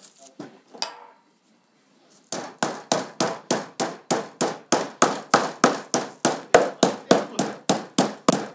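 Metal meat mallet pounding pork slices through plastic wrap on a wooden cutting board, flattening them for pork cutlets. A steady run of blows, about three or four a second, starts a couple of seconds in.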